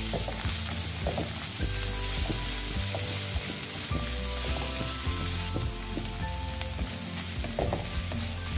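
Chopped onion and green chilli sizzling in hot mustard oil in a metal kadhai, while a wooden spatula stirs and scrapes them around the pan. The onions are frying on medium heat toward golden brown.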